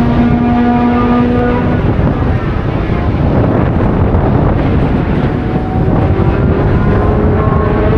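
Racing car engines running hard under a loud rushing noise. One engine holds a steady note for the first couple of seconds, and another climbs in pitch near the end.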